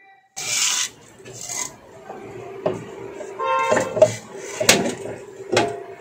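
Steel outer rotor of an LG front-loader's direct-drive motor being worked off its shaft by hand: a loud scrape near the start, rubbing and a short ringing squeal, and several sharp metal knocks as it comes free against the pull of its magnets.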